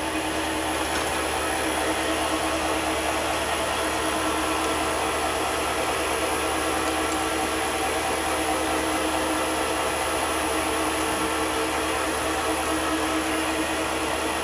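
Chinese mini lathe running steadily with its newly fitted, upgraded motor turning the spindle and chuck at constant speed: a steady hum with a thin high whine, the drill not yet cutting.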